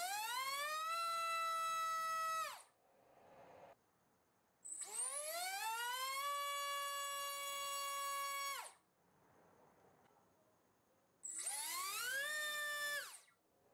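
BrotherHobby T1 1407-4100KV brushless motor spinning 4-inch propellers on a thrust stand in three short throttle runs. Each time the whine climbs steeply in pitch, holds steady, then dies away: the first run is already under way and stops about two and a half seconds in, the second holds for about three seconds, and the last, with a three-blade prop, is the shortest.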